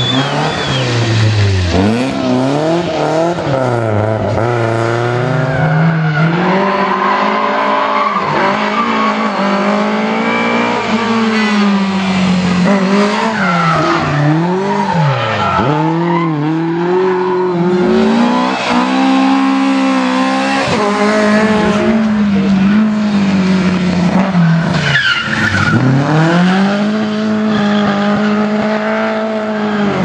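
Rally cars driven hard through corners one after another: engines revving high, their pitch dropping and climbing again over and over with lifts and gear changes, with tyre squeal at times.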